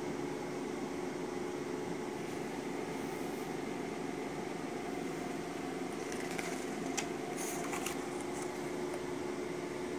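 Steady background hum, like a running fan, throughout. Over it, the glossy pages of a yearbook are turned and handled, giving a short cluster of crisp paper rustles and clicks from about six to eight seconds in.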